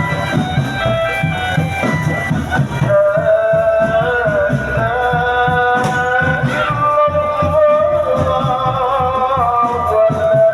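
Loud music playing through a large sound system: a sung melody with long held, gliding notes over a steady drum beat and shaker-like percussion.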